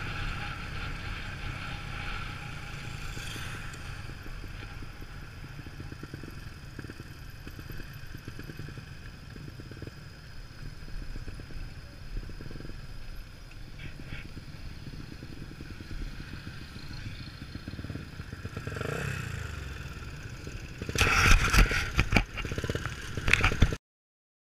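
Yamaha Sniper motorcycle engine running at road speed, with wind and road noise on the mounted camera. Near the end a burst of loud clattering knocks, then the sound cuts off abruptly.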